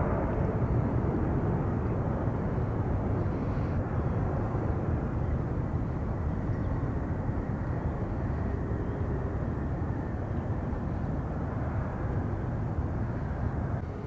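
Jet airliner engines, a steady rushing noise that fades slowly.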